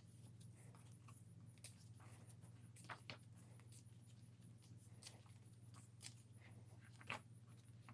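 Near silence with a steady faint low hum and a few faint paper rustles and taps from photo book pages being handled and turned, the clearest about three seconds in and about seven seconds in.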